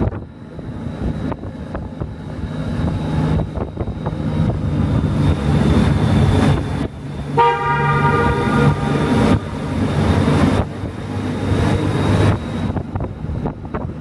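Motorcycle engine running with wind noise on the microphone, growing louder while passing through a rock tunnel. About seven and a half seconds in, a horn sounds for about a second and a half.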